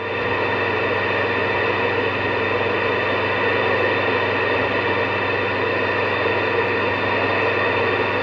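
CB radio receiver putting out steady static hiss with a faint low hum on an open channel between transmissions.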